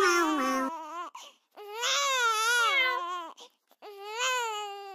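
Crying in a high, baby-like voice: three long, wavering wails with short breaks between them.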